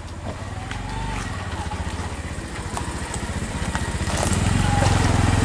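Auto-rickshaw engine running as the three-wheeler approaches, growing louder and loudest from about four seconds in.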